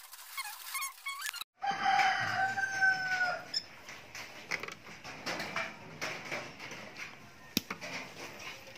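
A rooster crows once, a long call with a slight fall at the end, starting about two seconds in; before it come short high squeaky calls. After the crow, scattered light clicks and taps of hand-tool work on the breakers, with one sharp click near the end.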